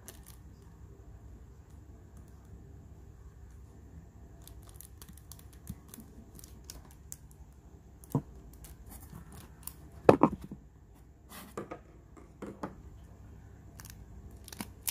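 Scattered metallic clicks and clacks of Zippo lighters being handled, with the loudest clacks about eight and ten seconds in.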